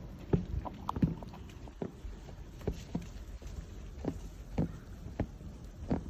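Footsteps in snow: a steady walking rhythm of soft crunching steps, a little under two a second.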